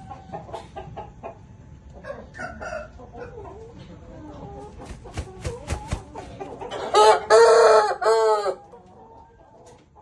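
Aseel rooster clucking softly, then beating its wings several times and crowing loudly about seven seconds in, a crow of about a second and a half.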